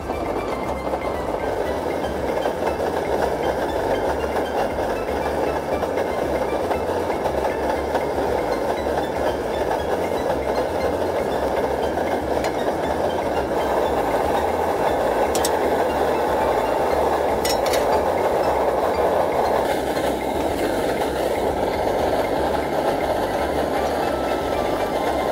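MSR DragonFly liquid-fuel camp stove burning under a frying pan with a loud, steady rushing noise. A couple of faint light clicks come about two-thirds of the way in.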